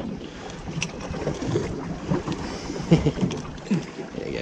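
Wind buffeting the microphone and water moving against the side of a small boat, with a few irregular knocks.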